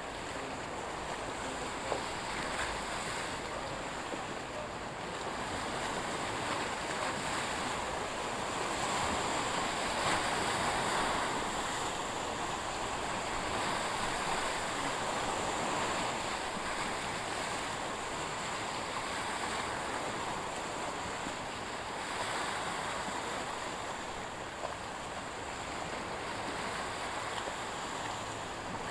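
Sea surf and wind: a steady rushing wash of waves that swells a little in the middle, with no other distinct sounds.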